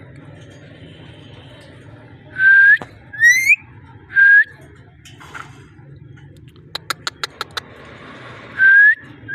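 Ringneck parrot giving short, loud whistled calls, four notes in all, some sliding upward in pitch. A quick run of about six clicks comes about seven seconds in.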